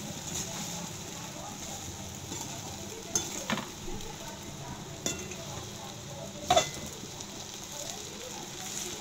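Metal spoon stirring and scraping flattened rice (poha) with onions around a metal kadhai on a low flame, over a steady soft sizzle of frying. A few sharp clinks of the spoon against the pan come in the second half; the loudest is about two-thirds of the way through.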